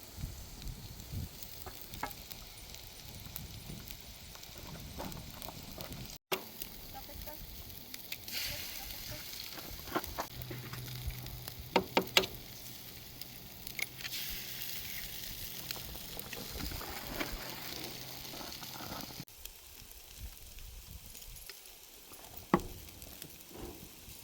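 Food sizzling as it fries in a pan, with a steady hiss and scattered sharp clicks and knocks.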